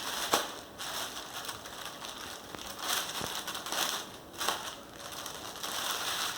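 Plastic parcel packaging crinkling and crackling in uneven bursts as it is handled and opened by hand, with a few sharp crackles.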